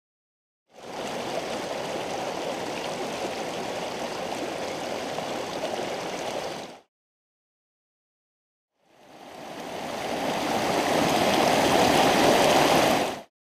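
Mountain stream flowing, an even rush of water. It runs steadily for about six seconds, stops dead for about two seconds, then fades back in louder and cuts off sharply just before the end.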